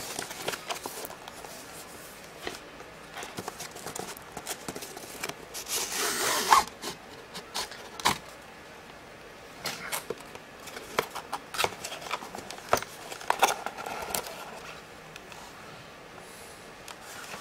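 A cardboard product box being handled and opened: paperboard rubbing, sliding and scraping, with scattered clicks and taps and a longer swish about six seconds in.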